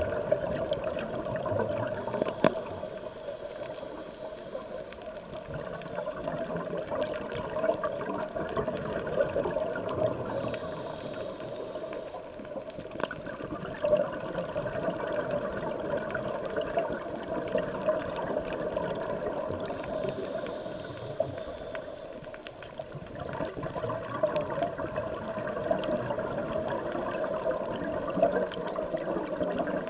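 Underwater water noise, a steady muffled wash with bubbling, that swells and eases over several seconds. Scattered sharp clicks sound through it.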